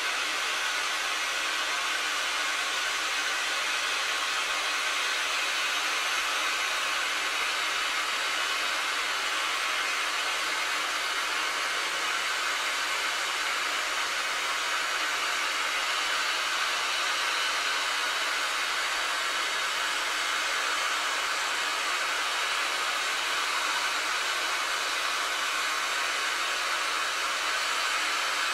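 Southern Railway S15 class 4-6-0 steam locomotive hissing steadily as steam escapes from its open cylinder drain cocks and from the top of the boiler: one unbroken hiss at an even level, with no exhaust beats.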